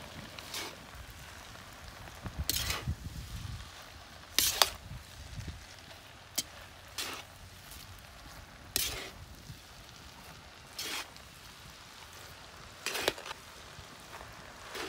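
A utensil scraping and clanking against a black iron kadai as a large batch of Hakka noodles is lifted and tossed, in short strokes roughly every two seconds.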